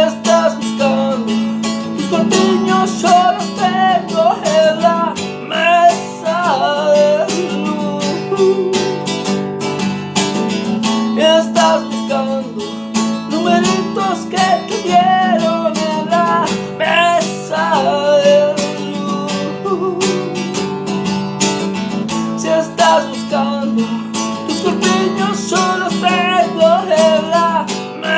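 Instrumental passage of a pop-rock song: strummed acoustic guitar with a melodic lead line that bends and wavers in pitch above it.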